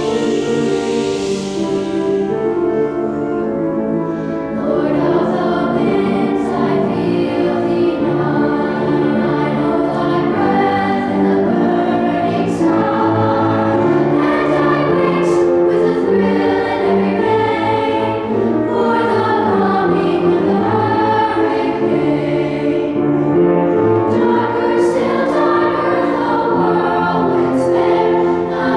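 Elementary-school children's choir singing, growing louder about four seconds in.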